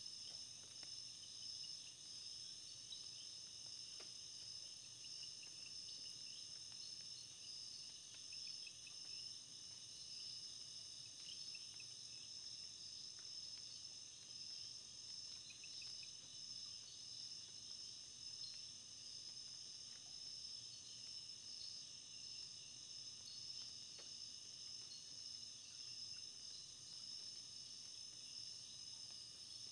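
Faint, steady high-pitched chorus of insects such as crickets, with a few soft short chirps lower down.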